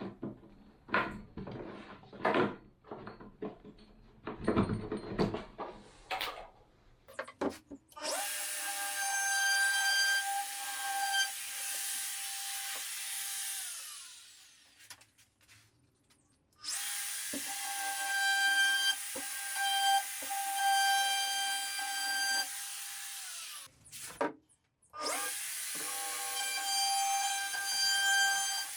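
Electric drill running in three long steady spells of about six seconds each, winding down between them. The spells are preceded by several seconds of knocks and clatter.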